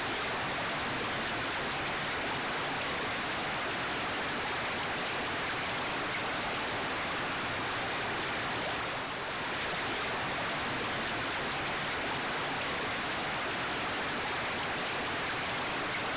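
Steady rush of running water, like a fountain or small waterfall splashing.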